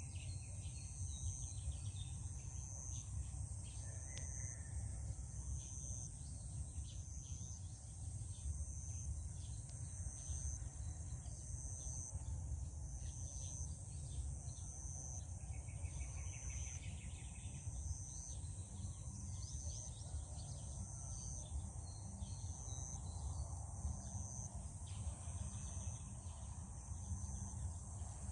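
Field insects, crickets among them, chirping in high, thin, steady trills that pulse about once a second, over a louder steady low rumble.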